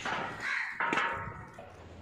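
Two short animal calls about half a second apart, followed by a sharp click.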